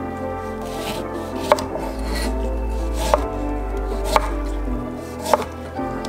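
Chef's knife slicing through a lemon on a wooden cutting board, the blade knocking sharply on the board four times, roughly a second apart.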